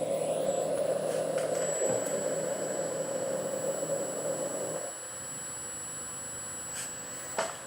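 Motor of a retrofitted CNC machine running with a steady whine, stopping abruptly about five seconds in; a single click follows near the end.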